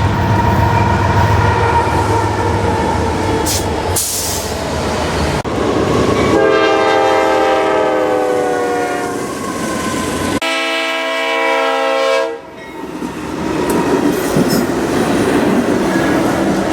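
Passing trains with locomotive horns blowing, cutting abruptly between short clips. A chord horn sounds about six seconds in, its pitch sagging slightly, and another horn blast follows about ten seconds in. Engine rumble and wheel noise fill the rest.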